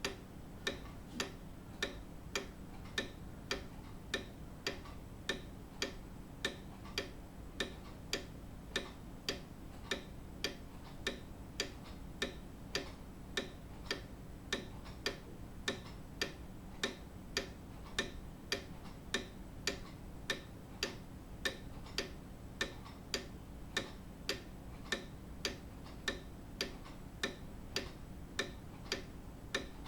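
Grandfather clock ticking steadily, an even run of sharp tick-tocks with no chime.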